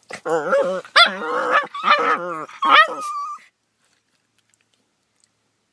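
Dog vocalising in a run of about five drawn-out, wavering whine-and-howl calls, the "weird noises" of morning play, which cut off suddenly about three and a half seconds in.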